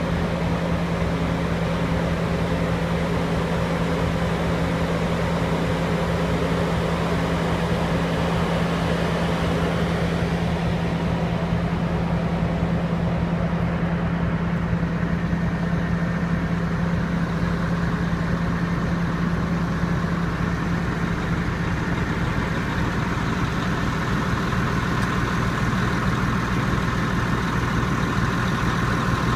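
Caterpillar D6T bulldozer's diesel engine running steadily; about three-quarters of the way through its tone shifts lower.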